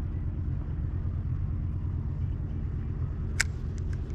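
Steady low rumble with a held low hum, and a single sharp click a little past three seconds in.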